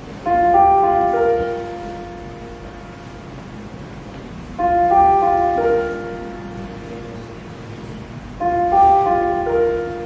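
A piano sounds the choir's starting notes as a broken chord three times, about four seconds apart: each note enters one after another, then all ring on and fade.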